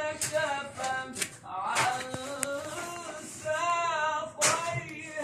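A voice singing a wavering melody in short phrases, quieter than the nearby talk, with a few sharp knocks scattered through it.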